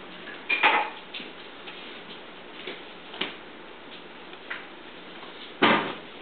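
Irregular light taps, clicks and knocks from cats batting a feather wand toy around a wooden chair. There are two louder clusters, one about half a second in and a heavier thump near the end.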